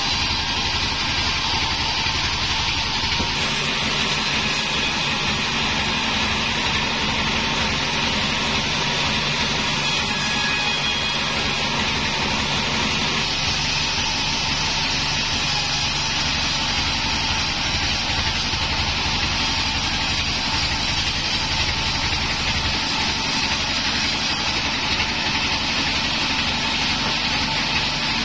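A sawmill's vertical band saw running and cutting through a log as the wood is fed past the blade, a steady mechanical drone throughout.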